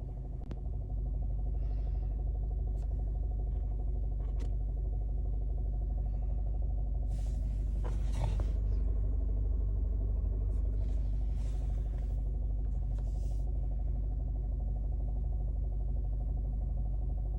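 Alfa Romeo Giulietta 1.4 TB turbo four-cylinder engine idling, heard from inside the cabin as a steady low drone with a pulsing beat: the strange idle sound the owner is trying to show. A few short rustles come through near the middle.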